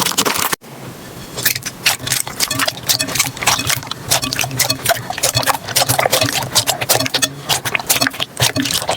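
Slime being squeezed and worked by hand: a dense, irregular run of sticky clicks and pops, broken by a brief silent cut about half a second in.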